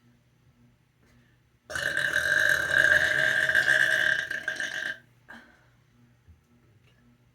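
A single long, loud burp from a person, starting about two seconds in and held at a steady pitch for about three seconds.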